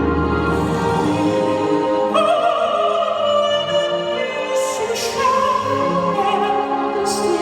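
A popera singer singing long, high notes with vibrato over backing accompaniment. The voice steps up in pitch about two seconds in and again near the five-second mark.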